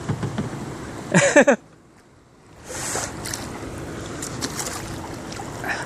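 Rush of river current and wind around a plastic kayak on the move, with scattered small splashes and drips. About a second in, a short loud pitched sound is followed by about a second of much quieter sound before the water noise returns.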